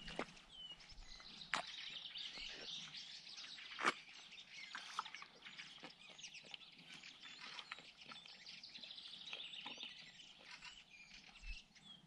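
A chorus of songbirds, many chirps and trills overlapping. A few sharp close snaps cut through it, the loudest about four seconds in.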